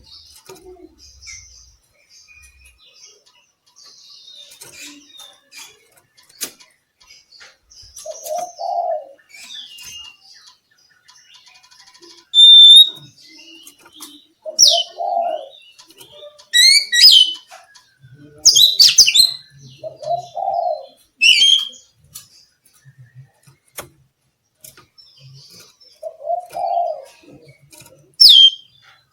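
Oriental magpie-robin (kacer) singing: separate phrases of loud, sharp whistled notes and quick rasping glides, with short pauses between, growing louder in the second half. A low call repeats about every six seconds underneath.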